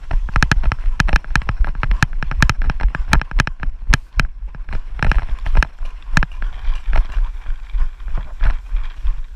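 Running footsteps on grass, quick sharp thuds about four or five a second, thinning out over the last few seconds, over a steady low rumble on the helmet-mounted microphone.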